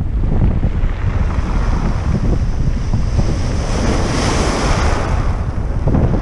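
Wind buffeting the microphone with a steady low rumble, while a wave washes up the pebble beach: its hiss swells, peaks about four seconds in, then fades as it drains back.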